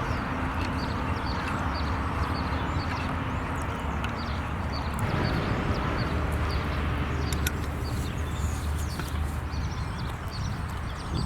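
Open wood fire under a cooking pot: a steady low rumble with occasional sharp crackles, and short high chirps repeating about twice a second.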